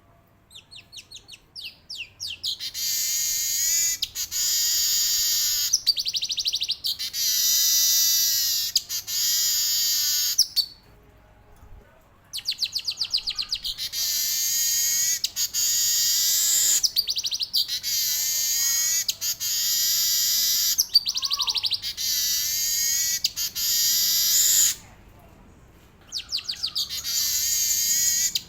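Male weaver bird (manyar) singing long rolling song bouts: quick trains of ticks build into long, high, buzzy rattling phrases several seconds long. There are short breaks about ten seconds in and again near the end.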